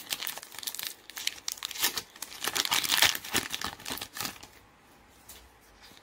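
Foil wrapper of a Pokémon card booster pack crinkling and tearing as it is ripped open, a dense crackling that peaks about three seconds in and then dies down to faint rustling.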